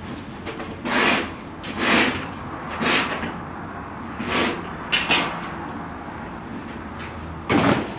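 Six short scrapes and clatters as a baker's long-handled metal tools work flatbreads out of a clay tandoor oven and set them down on its dome; the last, near the end, is the loudest.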